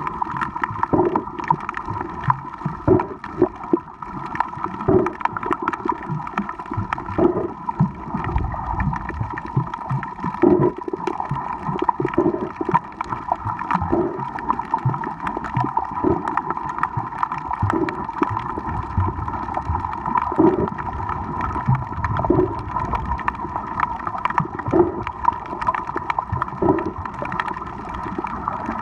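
Underwater sound picked up by a snorkeler's camera: muffled water movement and gurgling with a soft swish about every two seconds, over a steady hum.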